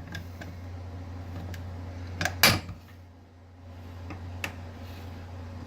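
Parts of a kitchen mixer grinder being handled during disassembly: a few light clicks and one loud knock about two and a half seconds in, over a steady low hum.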